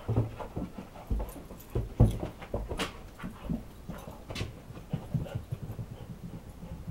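Siberian husky panting, with irregular thumps on carpeted stairs as it moves about at the top and bounds down. The loudest thump comes about two seconds in.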